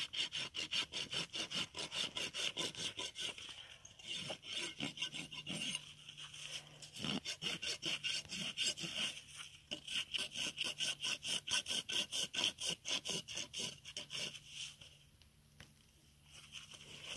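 Hoof rasp filing a horse's hoof in quick back-and-forth strokes, about four a second, as the hoof is levelled during a barefoot trim. The rasping breaks off briefly about six seconds in and stops a couple of seconds before the end.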